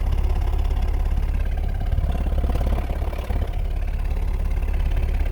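Mercedes-Benz E-Class engine idling with a steady, rapidly pulsing low rumble. This is the rough idle and idle noise being diagnosed, for which no fault code is set.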